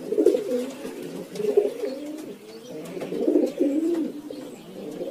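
Doves cooing: a run of low, wavering coos that overlap and swell in loudness several times.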